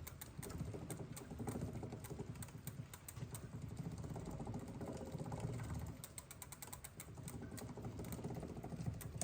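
Bicycle chain drivetrain turned over by hand to test a newly adjusted rear derailleur, with runs of fast ratcheting clicks from the rear freewheel over the low run of the chain.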